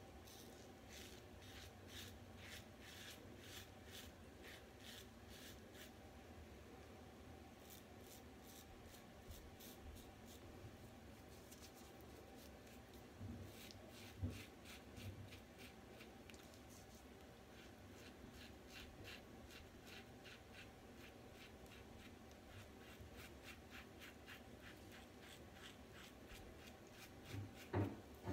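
Double-edge safety razor (a Gillette Fatboy with a Treet Platinum blade) scraping through stubble in short touch-up strokes: faint, crisp scratches about three a second, coming in runs with pauses between them. A few soft knocks come about halfway through and again near the end.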